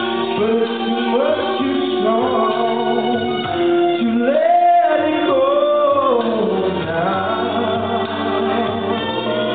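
A man singing karaoke into a microphone over a backing track, holding long, sliding notes midway through.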